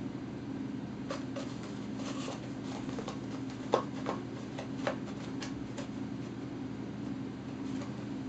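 Paper towel roll rustling and crinkling in short, irregular crackles as a cat claws and bites at it, the sharpest about four seconds in. A steady low hum sits underneath.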